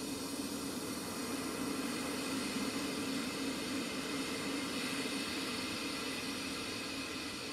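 Steady droning noise: a low hum under an even hiss, holding the same level throughout with no breaks or changes.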